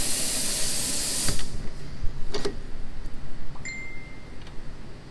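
A loud, high hiss that stops abruptly about a second in, followed by a few light clicks and knocks.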